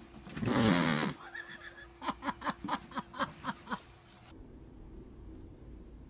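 A person's loud cry with a falling pitch, followed by laughter in a quick run of about eight short bursts.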